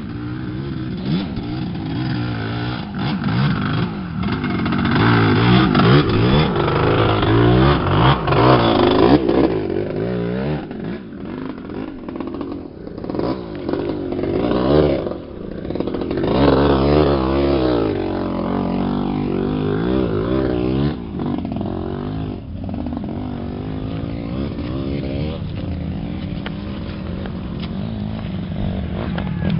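Dirt bike engines revving, their pitch rising and falling again and again; loudest about five to nine seconds in and again around sixteen seconds.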